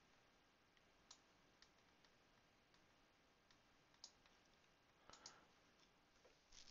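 Faint computer mouse clicks, a few scattered through near silence.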